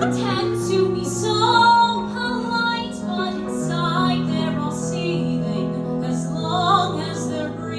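Live music: piano accompaniment with a woman singing in a slow, gentle musical-theatre song.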